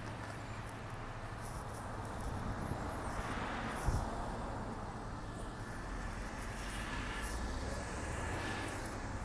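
Street traffic: cars driving past, heard as two slow swells of tyre and road noise, one around the middle and another later on, over a steady low rumble. A single short thump comes near the middle.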